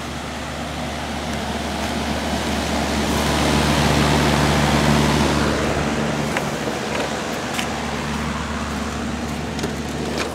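York Deluxe high-efficiency 2-ton air-conditioner condensing unit running, a steady low hum under the rushing noise of its outdoor fan, which is very noisy. The rushing noise swells louder over the middle few seconds and then eases back.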